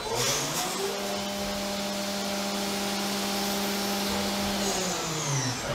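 CNC mill spindle spinning up, running at a steady whine, then winding down in pitch near the end, over the hiss of flood coolant spraying. A number 30 drill is boring a hole through a 6061 aluminium block.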